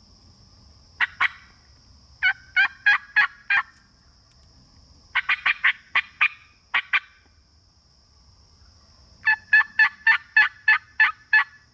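Turkey yelps on a hunter's mouth call: four runs of sharp, evenly spaced notes, about three a second, the runs growing from two notes to about nine.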